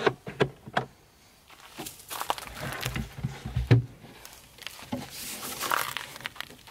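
A Drifta rear storage drawer being slid out on its Teflon runners and lifted out of the cabinet: irregular scraping and knocking, with one loud thump nearly four seconds in.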